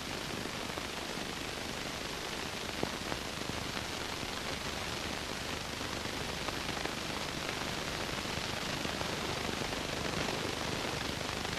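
Steady background hiss and crackle, with a few faint short clicks about three seconds in.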